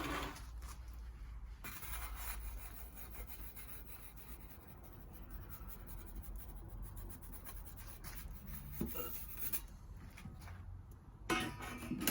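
Wood fire burning in a pizza oven, crackling faintly with many small irregular ticks.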